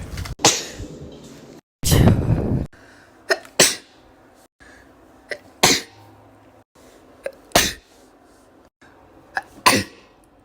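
A person sneezing six times in a row, about every two seconds. Each sneeze is a sharp, sudden burst, most with a short catch just before it. The second sneeze is longer and breathier than the rest, and the sneezes are separated by abrupt cuts to silence.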